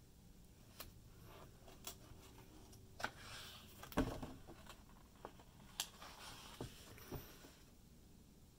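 A page of a large hardcover artbook being turned by hand. Scattered light paper ticks and crinkles lead into a rustle about three seconds in. The page flaps over with a soft slap about four seconds in, the loudest sound, and a few lighter taps follow as it settles.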